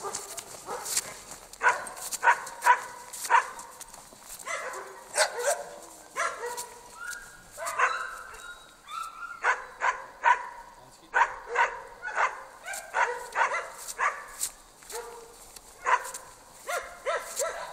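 Jämthunds (Swedish elkhounds) barking over and over, short barks coming one to three a second in irregular runs.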